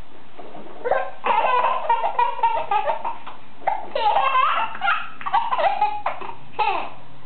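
Baby laughing, high-pitched, in three bouts of rapid laughs with short pauses between them, starting about a second in.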